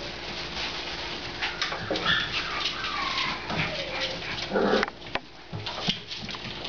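Young puppies playing on cedar shavings: the shavings rustle under their paws throughout, with a few thin whining squeals a couple of seconds in and a short, louder yip about two-thirds of the way through.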